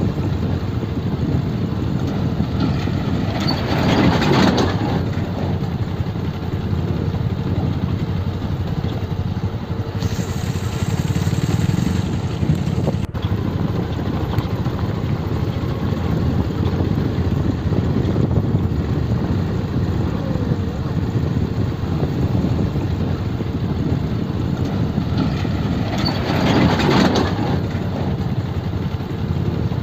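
Motorcycle engine running steadily while riding over a rough dirt road, with road rumble and wind noise on the microphone. Two brief louder swells of noise come a few seconds in and again near the end.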